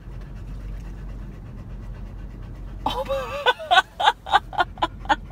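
A person bursts out laughing about three seconds in: a high wavering squeal, then a run of short, loud ha-ha pulses at about four a second. Before that there is only a low steady rumble.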